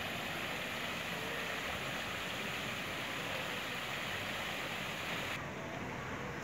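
Steady rushing splash of fountain water pouring over the rim of a wide bowl into the basin below. It cuts off suddenly about five seconds in, leaving a quieter background hum.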